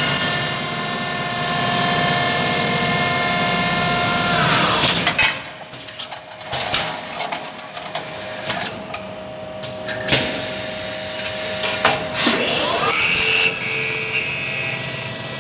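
CNC machine spindle running with a steady whine, then winding down with a falling pitch about four and a half seconds in. A stretch of sharp clicks and clanks follows, fitting an autoloader part change, and about twelve seconds in the spindle spins back up with a rising whine.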